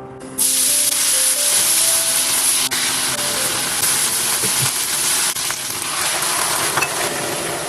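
Food sizzling in a hot pan: a steady hiss with scattered small crackles, starting about half a second in and easing off slightly towards the end.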